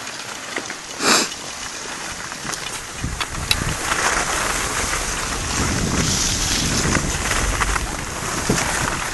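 Skis sliding over packed piste snow, with wind buffeting the microphone. It is a steady rushing noise with a low rumble that swells about three seconds in as the skier picks up speed downhill. There is one short sound about a second in.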